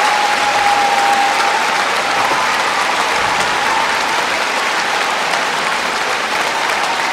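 Arena audience applauding steadily, a dense even patter of many hands clapping, with a faint held tone underneath.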